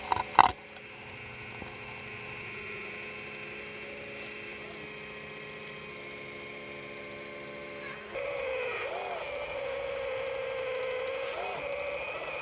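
Hydraulic pump of a 1/12-scale RC excavator humming steadily while it digs, with a couple of sharp clicks about half a second in. About eight seconds in the hum steps up louder to a slightly wavering tone.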